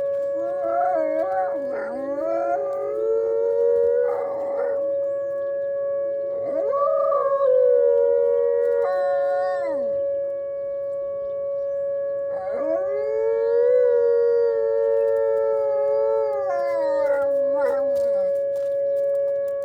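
High-content wolfdog howling and vocalising in a string of calls: short wavering ones at the start, then longer howls that rise, hold for several seconds and slide down at the end. A steady hum sounds under the calls the whole time.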